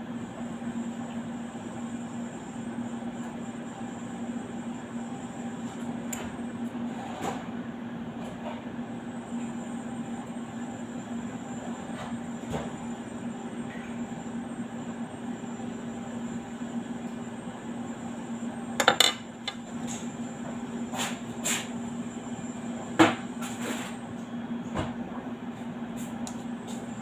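A steady hum at one pitch, with scattered knocks and clicks from work being done, two of them sharp and loud about two-thirds of the way in and again a few seconds later.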